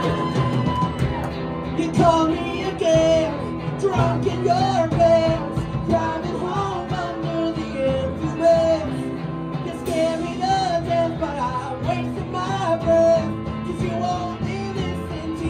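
Live rock band playing: a singer's melody with held notes over electric guitar and drums.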